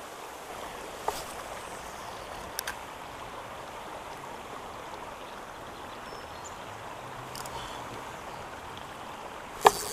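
Steady hiss of light rain falling on a pond, with a few faint clicks and one sharp click near the end.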